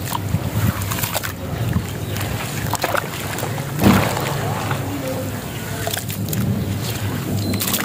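Hands sloshing through water in a metal basin, squeezing and crumbling lumps of grainy sand, with scattered small crackles and a louder swish about four seconds in.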